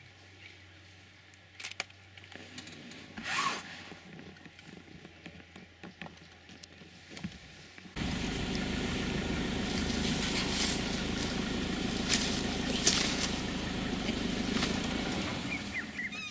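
Safari vehicle's engine running as it drives, a steady rumble that comes in abruptly about halfway through after a quieter stretch of faint low hum and scattered ticks.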